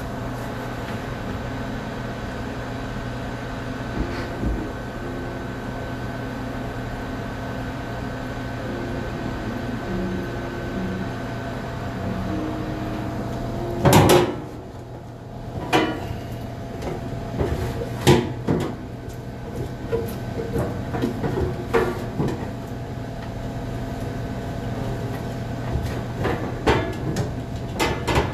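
A steady hum, then one loud knock about halfway through, after which the hum drops away and scattered short knocks and clatters follow.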